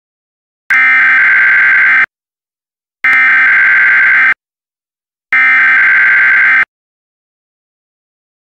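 Emergency Alert System SAME header: three identical bursts of buzzy digital data tones, each about a second and a half long with about a second's gap between them, carrying the coded severe thunderstorm warning.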